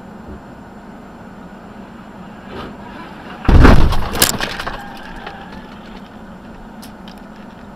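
Vehicle collision picked up by a dash camera: a sudden loud bang about three and a half seconds in, a second sharp crack with breaking glass, then debris clattering for about a second, over a steady traffic hum.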